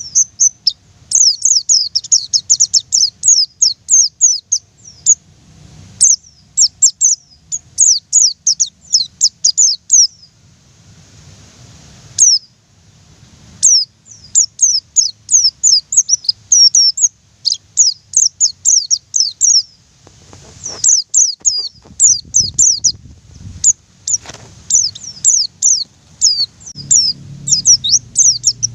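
Pleci (white-eye, Zosterops) singing in long, fast runs of thin, high, downward-slurred notes, the rolling 'ngerol' song. The song pauses briefly twice.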